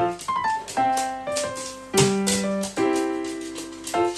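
Background piano music: a short phrase of struck notes that repeats about every two seconds.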